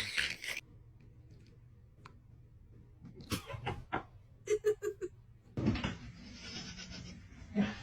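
An animal's call: four short, quick pitched cries in a row around the middle, after a few faint clicks.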